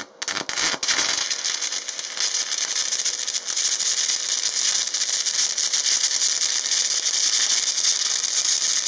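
Stick (MMA) welding arc from an aluminium coated electrode at 125 amps on 10 mm aluminium plate: a few short sputters as the arc is struck in the first second, then a steady, dense crackle and hiss as the bead is run.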